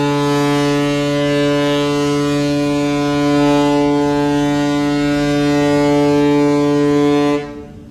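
Ferry's ship horn sounding one long, steady, deep blast with many overtones, then cutting off sharply near the end. One long blast is the signal that a ship is about to berth.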